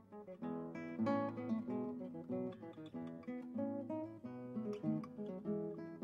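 Background music: an acoustic guitar picking a melody in a steady run of plucked notes.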